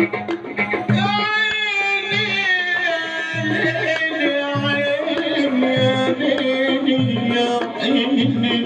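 Egyptian Sufi religious chanting (inshad): a male voice sings long, ornamented melodic lines over a steady percussion beat of drum and riq.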